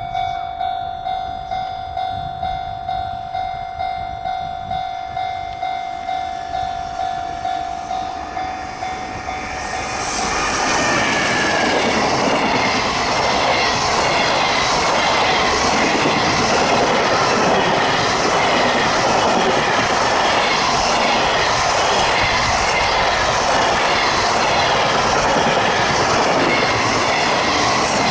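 Japanese level-crossing alarm bell ringing in a steady pulse of about two strokes a second. About ten seconds in, a freight train hauled by a JR Freight EF210 electric locomotive passes close by, and its loud rush and wheel clatter swamp the bell.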